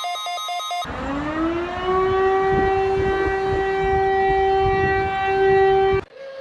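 Civil defense siren winding up over about a second to a steady wail, with a low rumble beneath, then cut off abruptly about six seconds in. Before it, a fast-pulsing electronic alert beep ends, and after it a quieter steady alert tone begins.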